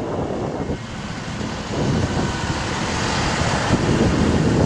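Wind buffeting the microphone over a bucket truck's engine running to work the boom hydraulics; it gets louder about two seconds in.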